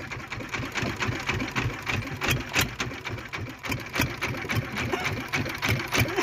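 Small fishing boat's engine running steadily at low speed with a fast, even clatter.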